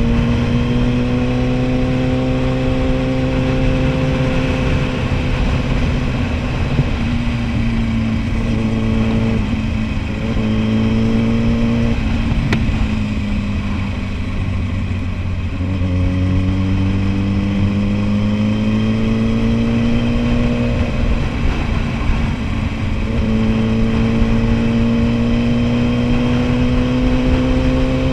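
Kawasaki Ninja ZX-10R's inline-four engine running under way at a fairly steady pitch. The note dips and breaks a few times, sinks lower for a few seconds around the middle, then climbs back.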